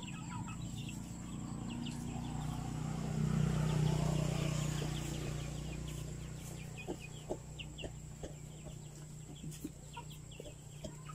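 Chickens clucking, with short high chirps scattered throughout, over a low steady drone that swells about three to four seconds in. A few sharp clicks come later.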